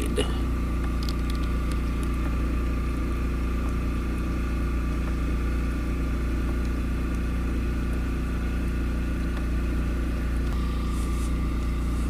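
Steady motor hum: a low drone with several steady tones above it, unchanging throughout.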